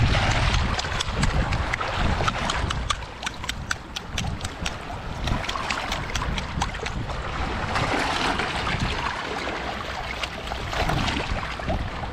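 A sea urchin's shell being cracked open with the edge of a seashell: a run of sharp clicks and crunches, thickest in the first half, over shallow seawater lapping and wind on the microphone.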